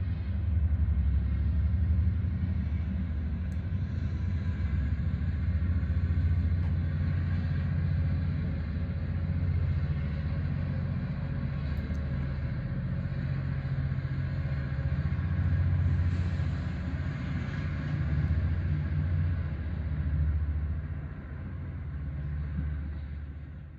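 Train running past with a steady low rumble, fading out at the end.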